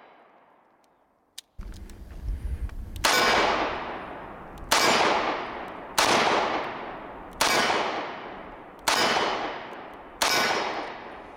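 Six shots from a Taurus 856 Ultra-Lite snub-nose .38 Special revolver, fired at a steady pace about one and a half seconds apart. Each shot rings out and fades over more than a second.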